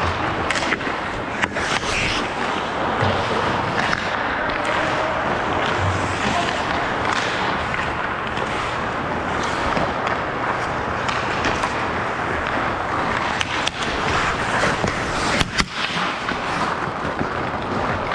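Hockey skates scraping and carving on ice, with scattered sharp clacks of sticks and puck.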